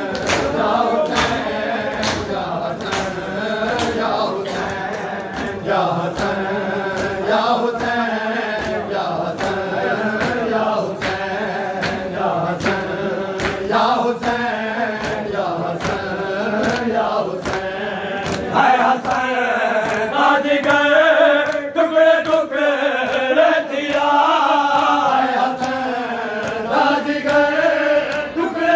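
A crowd of mourners chanting together in a noh-style lament, over steady hand slaps on bare chests (matam) at about two a second. The slaps are clearest in the first half, and the chanting grows louder in the second half.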